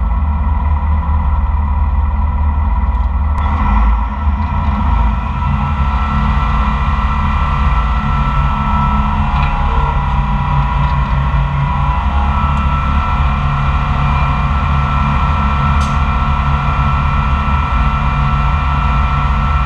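Koehring 440 Spanner dragline's engine and drive machinery running steadily under load while the bucket is worked and hoisted, with a steady mechanical whine above the engine's low running note.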